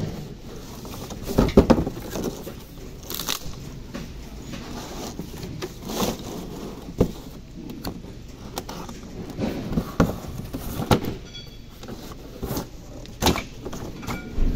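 Cardboard box being opened by hand: flaps pulled back and torn, with the cardboard scraping, creasing and rustling in irregular bursts.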